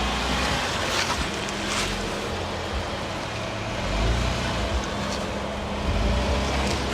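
Jeep Wrangler JK's engine working under load as it crawls up a rocky climb, swelling in a few throttle bursts, with a few faint knocks near the start.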